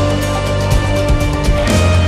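Background music with a steady beat laid over the footage.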